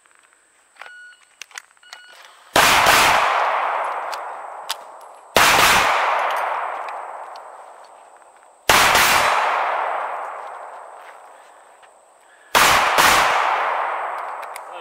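Pistol shots during a shooting drill: single shots about three seconds apart, then a quick pair near the end, each ringing out with a long echoing decay.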